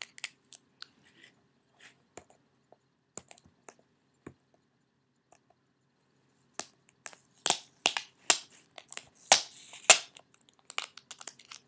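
Stickers being peeled off a Blu-ray package's plastic wrapping, with the wrap crinkling and crackling in scattered sharp clicks. It gets busier and louder from about seven to ten seconds in.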